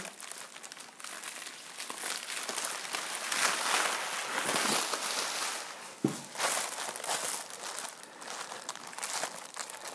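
A large sheet of foil radiant-barrier reflective film crinkling and rustling as it is shaken out, spread over a frame and smoothed by hand. The crinkling is loudest through the middle of the stretch.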